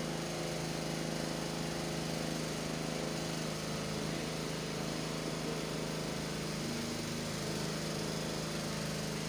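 A steady, low machine hum with a constant pitch, like a small motor running.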